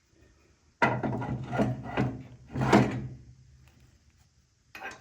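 Metal spacers and a wheel clunking and scraping as they are fitted onto a finish mower's wheel shaft: a run of loud knocks with a low ring over about two and a half seconds, then one short knock near the end.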